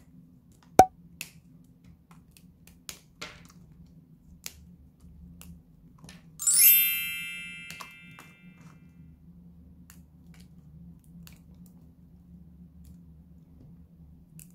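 Dry bar soap snapped and crumbled by hand: one sharp snap about a second in, then a few lighter cracks. Later a bright chime rings out and fades over about a second and a half, the notification-bell sound effect of a subscribe button.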